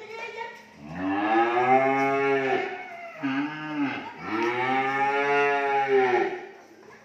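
Cattle mooing: a long moo about a second in, a short one in the middle, and another long moo of about two seconds near the end, each rising and then falling in pitch.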